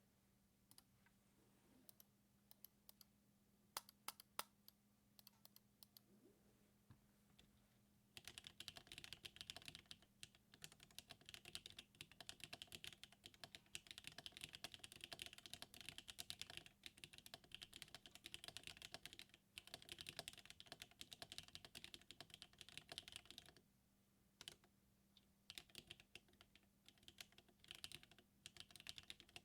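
Typing on a Mercutio 40% mechanical keyboard fitted with Akko Cream Yellow linear switches. It starts with a few scattered keystrokes, then fast continuous typing from about eight seconds in. The typing breaks off briefly near the end and then resumes.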